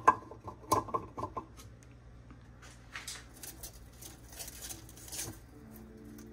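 A ceramic feeding dish being set down on rock and substrate: a few light clinks and knocks in the first second and a half. Faint scratching and rustling follow. Soft background music comes in near the end.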